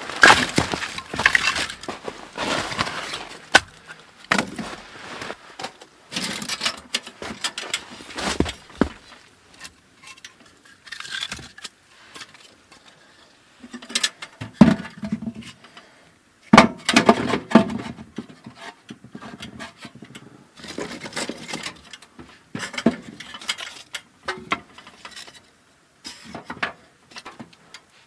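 Intermittent handling noises in irregular bursts of a second or two: clinks, knocks and rustling of objects being moved about.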